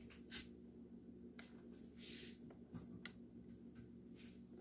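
Near silence: room tone with a faint steady hum and a few soft clicks and knocks.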